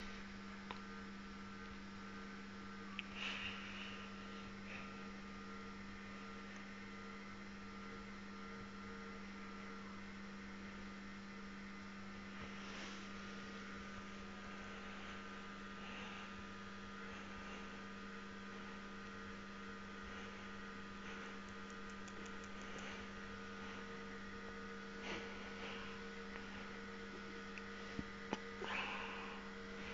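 Steady low electrical hum with a weaker higher tone above it, and a few faint brief noises scattered through it.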